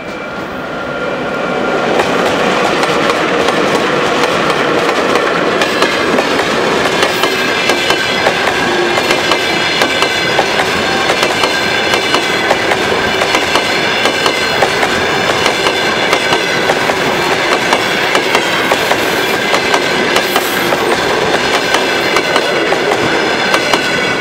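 A passenger train hauled by a Škoda-built ChS7 electric locomotive passing at speed. Its wheels click over the rail joints in a fast, steady rhythm, with a steady high whine above. The sound swells over the first two seconds as the train arrives, then stays loud.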